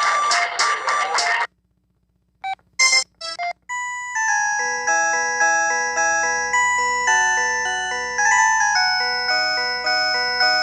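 Ringtones played through a Telit mobile phone's small speaker: one tune cuts off about a second and a half in, a few short tones follow, and a new melody of separate, quickly fading notes starts about four seconds in and keeps going.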